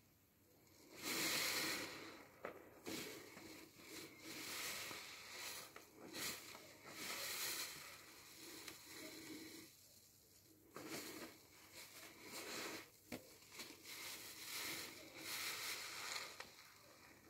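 A new car-washing sponge squeezed by hand again and again in thick soapy foam, giving wet squeezing sounds in uneven bursts. The loudest squeeze comes about a second in, with brief lulls around ten seconds and near the end.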